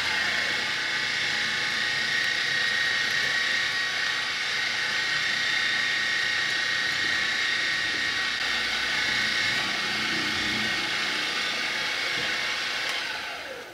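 Milling machine spindle running a twist drill into an aluminium block: a steady machine whine with the noise of the cut. It fades out near the end.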